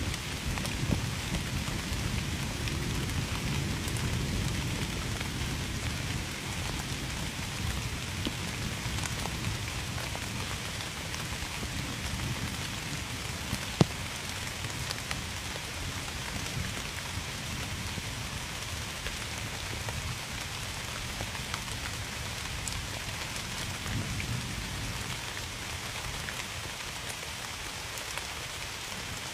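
Steady rain falling and pattering on a surface, with scattered drop ticks. A low rumble fades away over the first several seconds, and one sharp drop tap stands out about halfway through.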